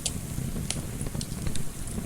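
Wood fire crackling, a few sharp pops over a steady low rumble of fire and gentle wind.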